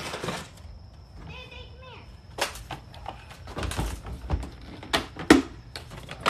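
Knocks and clatter of objects being handled and set down, several separate sharp hits with the loudest about five seconds in, plus a brief voice-like call a little over a second in.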